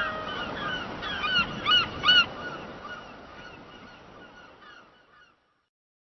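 A flock of gulls calling: many short, overlapping cries, loudest about two seconds in, then fading out a little after five seconds.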